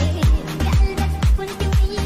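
Background music with a steady electronic dance beat: a kick drum about twice a second over a held bass note, with a wavering melody on top.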